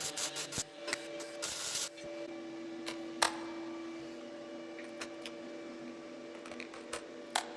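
Scattered sharp clicks and knocks over a faint steady hum, with a short hiss in the first two seconds.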